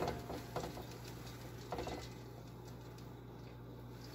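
Drained, boiled basmati rice tipped out of a pot onto the chicken layer in a cooking pot: a soft patter with a couple of light knocks in the first two seconds, over a low steady hum.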